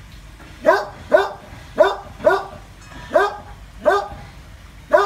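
A dog barking at a monitor lizard: seven single sharp barks, irregularly spaced about half a second to a second apart.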